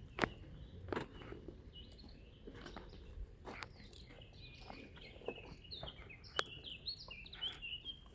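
Small birds chirping and twittering in quick, short phrases, with a few sharp clicks scattered among them.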